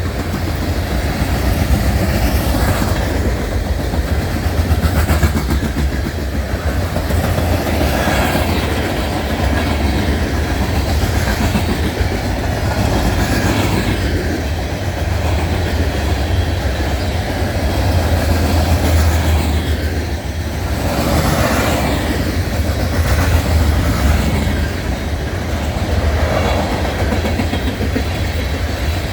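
Empty coal hopper cars of a freight train rolling past, steel wheels on the rails making a steady loud rumble with clacking.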